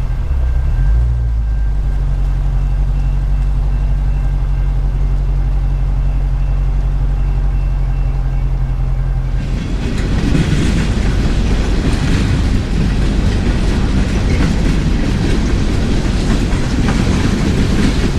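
Train passing close by: a low steady engine drone, then about halfway through the louder rumble and clatter of wheels rolling over the rails.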